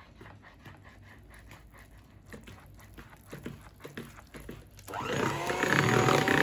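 Electric hand mixer switching on about five seconds in and running steadily on its lowest speed, its beaters churning cake batter; before that, only faint scattered clicks.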